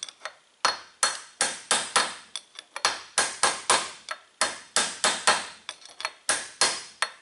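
Hammer tapping a punch against the lip of a steel tapered bearing race to drive it out of an aluminum Porsche 944 front hub: light, ringing metal-on-metal strikes about three a second, with a short break shortly after the start and another just past the middle. The race has been loosened by a MIG weld bead shrinking it, so it is being tapped out gently rather than hammered.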